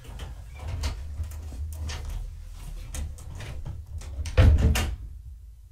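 A run of light clicks and knocks, then a louder thud as a door is shut about four and a half seconds in.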